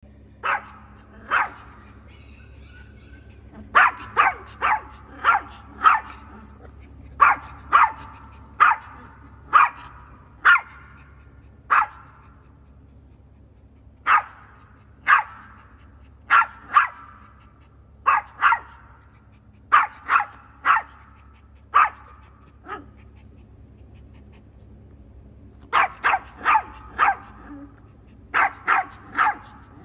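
A small Yorkshire terrier barking over and over in short, high-pitched barks, about thirty in all, coming in quick runs of two to five with brief gaps and a pause of a few seconds near the end. The dog is guarding its ball.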